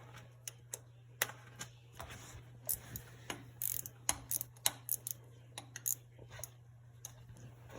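Irregular small metallic clicks and clinks of a 7/16 box-end wrench working the PTO drain plug loose on an International 560 tractor housing.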